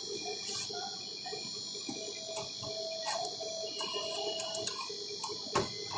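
General split air conditioner's outdoor unit running during a pump-down, with its refrigerant being locked into the outdoor unit: a steady hum with a high-pitched whine. A sharp click comes near the end.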